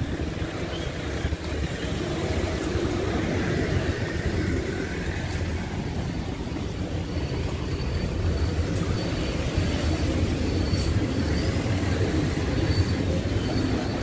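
City street traffic: a steady low rumble of cars, minibuses and buses running and passing close by.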